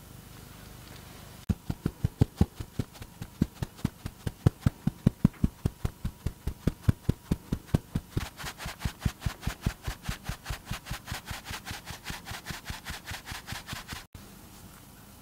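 Fine metal mesh sieve being tapped rapidly and evenly to sift cake flour into a glass bowl, about five light knocks a second, with a soft sifting hiss on each knock that grows stronger in the second half. The tapping starts suddenly after a second and a half and cuts off about a second before the end.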